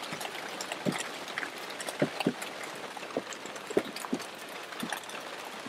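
Steady rain falling, with scattered irregular taps.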